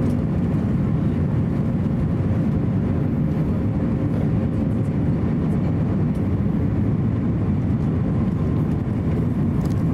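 Steady low cabin noise of an Airbus A350-900 on final approach: the Rolls-Royce Trent XWB engines and the airflow over the fuselage, heard from a seat over the wing, with a faint steady hum.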